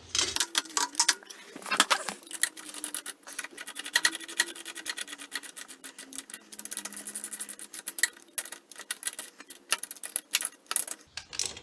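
Hand ratchet clicking in rapid, even runs of small metallic ticks as a head bolt is run down into a Heli-Coil thread-repair insert in the engine's cylinder head.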